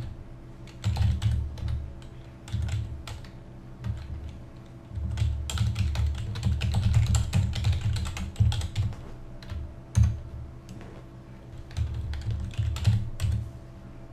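Typing on a computer keyboard in irregular bursts of keystrokes with short pauses between them, and one louder key strike about ten seconds in, over a faint steady hum.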